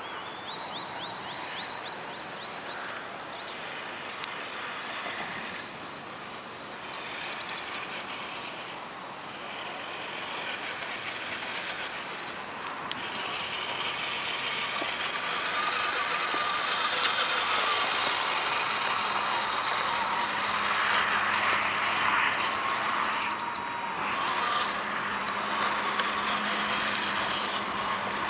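Tamiya Toyota Tundra RC truck's electric motor and gearbox whining as it crawls over dirt and rocks. It gets louder about halfway through, as the truck comes close.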